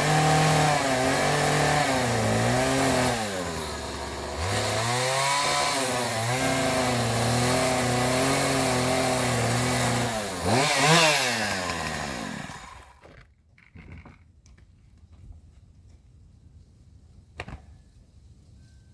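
A small engine running with its pitch dipping and rising several times, then one quick rev about eleven seconds in, before it winds down and stops. A faint click or two follows in the quiet.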